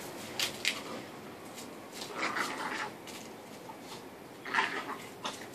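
A blue-nose pit bull puppy and a small dog play-fighting: short noisy scuffles and breaths, with a couple of sharp clicks about half a second in.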